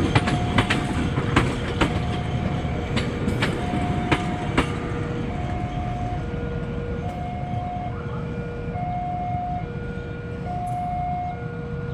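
A passing train's wheels clicking over rail joints, the clicks dying away after about four and a half seconds. Over it, a two-tone electronic warning signal alternates high and low, each tone held about half a second.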